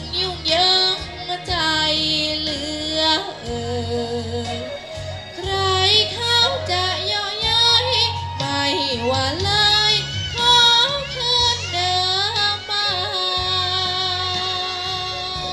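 A young girl singing a Thai song into a microphone over a recorded backing track with a steady bass, holding notes with a strong waver.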